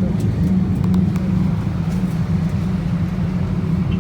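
Steady low hum of an Airbus A319's cabin before takeoff, with a few faint clicks.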